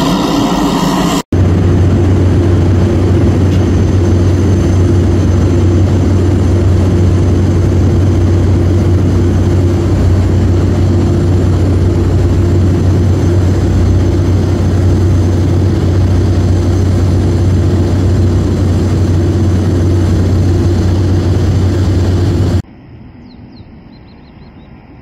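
Briefly at the start, the Pilatus PC-12 turboprop taxiing. After a sudden cut comes a loud, steady aircraft engine drone with a low hum, which stops abruptly near the end and leaves a much quieter background.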